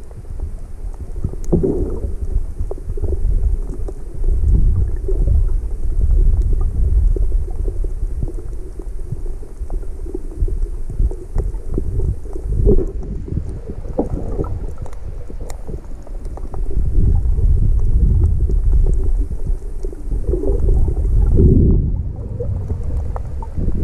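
Low, muffled rumbling and sloshing of water, heard through an action camera's waterproof housing held underwater. It swells and fades every few seconds, with scattered faint clicks.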